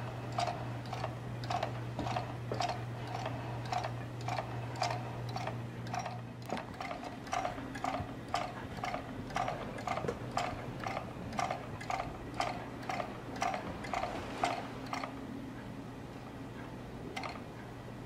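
Regular ticking, about two clicks a second, from a homemade magnet wheel motor turning. Each time one of the wheel's large magnets passes, the small pivoting magnet flips 90 degrees and knocks against its rubber stops. The ticking stops about fifteen seconds in, with one last click a couple of seconds later.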